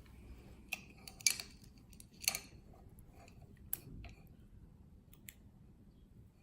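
A few sharp metallic clicks and clinks of a lock and small metal parts being handled at the bench, spaced irregularly, the loudest a little over a second in and again about two seconds in.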